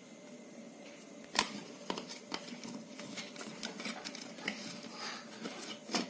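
Quiet clicks and taps of hands handling a roll of electrical tape, a small plastic rocker switch and its wires, with one sharp click about a second and a half in.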